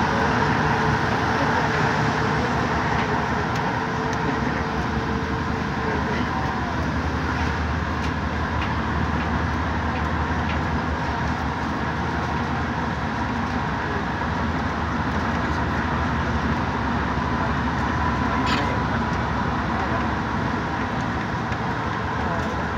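Santiago Metro Line 5 train running along the track, heard from inside the driver's cab: steady rolling and traction-motor noise with a steady whine.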